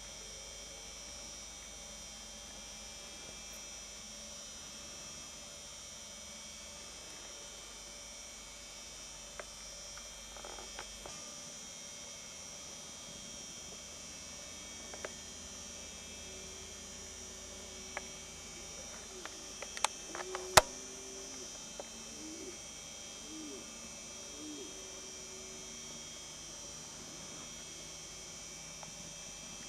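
Steady high chirring of crickets or other insects in a field at dusk, with a low hum that stops partway through. A few sharp clicks come in the middle, the loudest about two-thirds of the way in.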